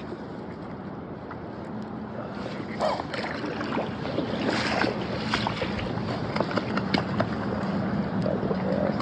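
Steady rush of river water with wind on the microphone, growing a little louder, with scattered short clicks and knocks.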